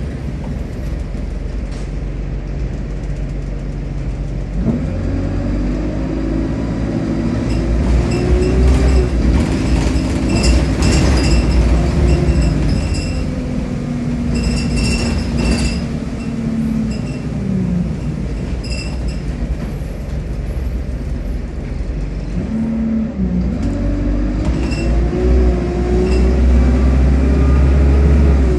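Diesel engine of an Alexander Dennis Enviro200 single-deck bus heard from inside the saloon, with a heavy low rumble. The engine note rises as the bus pulls away about five seconds in, holds steady while cruising, then eases off. It climbs again as the bus accelerates a second time and drops away sharply near the end. Brief clinks and rattles from the fittings come through now and then.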